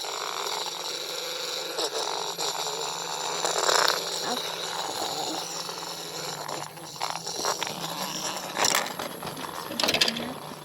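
Small plastic toy pieces handled and moved about, making scattered light clicks and knocks over a steady background hiss.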